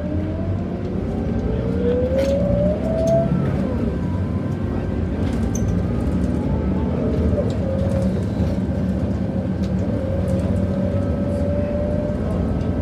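Scania K94UB city bus heard from inside the saloon, its engine and driveline running under way with a low rumble. A whine rises in pitch over the first three seconds as it accelerates, and a steadier whine comes back from about seven seconds in.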